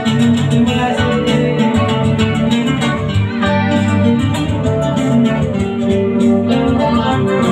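Live band music played through a PA: an electric guitar over a keyboard backing, with steady sustained chords and low notes.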